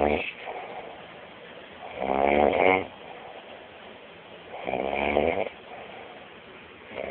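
A drunk man snoring in his sleep, with one snore roughly every two and a half seconds: the last of one at the start, two full snores, and the next beginning near the end.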